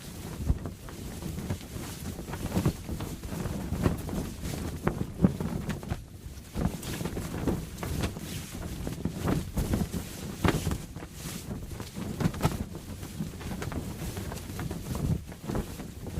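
Canvas sail flapping in the wind, with irregular snaps and flutters over a steady rush of wind.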